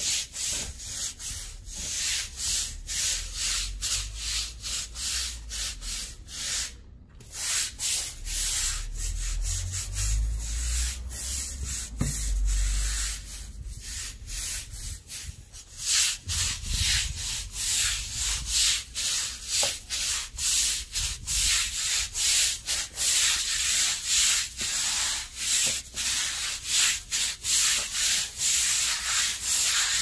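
Stiff-bristled deck brush scrubbing wet, soapy concrete paving in repeated scratchy back-and-forth strokes. There is a brief pause about seven seconds in, and the strokes come quicker and more evenly after about sixteen seconds.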